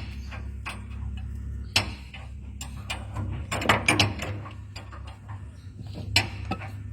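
Steady low electric hum from the rewound 440-volt motor running, with scattered sharp metallic clicks and knocks from handling, bunched about halfway through.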